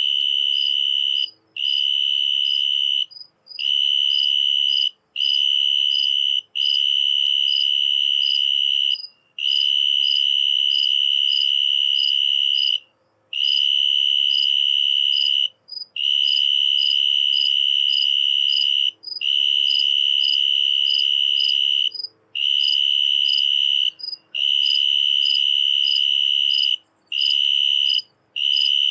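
Snowy tree cricket singing: a high, evenly paced chirping, in stretches of a few seconds broken by short pauses.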